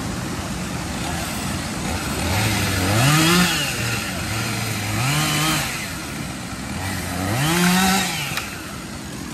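A small engine revved up three times over a steady running noise, each time rising in pitch and dropping back.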